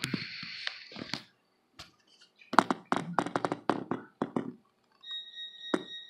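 A quick run of sharp clicks and knocks of handling on a desk, the camera being moved, followed near the end by a faint steady high-pitched tone with one more sharp click.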